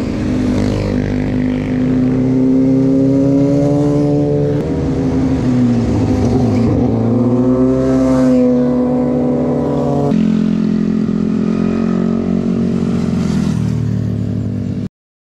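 Sport motorcycle engines passing at speed, their exhaust notes rising and falling as the riders accelerate through a bend. The engine sound changes abruptly about four and a half and ten seconds in, then cuts off suddenly shortly before the end.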